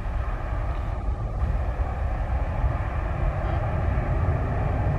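Jet engines of an Airbus A320-family airliner climbing away at takeoff power: a steady, deep rumble.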